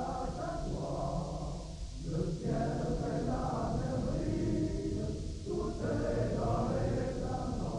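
A group of voices singing together, choir-like, in sung phrases of a few seconds with short breaks about two seconds in and again past five seconds.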